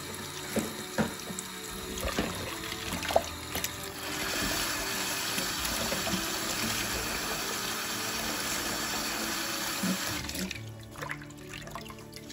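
Tap water running into a bowl in a stainless steel sink and splashing as pickled mustard greens are rinsed of their brine by hand. The running water gets louder about four seconds in and stops near the end.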